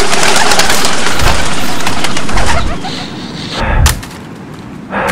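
Night-forest ambience: dense rustling noise that falls away about two and a half seconds in, with cooing bird calls and a few dull low thuds about a second apart.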